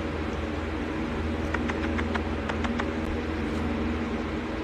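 A domestic cat growling low and steady, a deep pulsing rumble, as it threatens the person holding it close. A few faint clicks sound in the middle.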